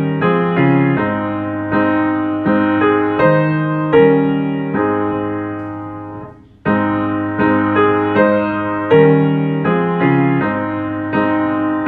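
Piano playing a hymn tune in block chords, each chord struck and left to fade, with a short pause between phrases about six and a half seconds in.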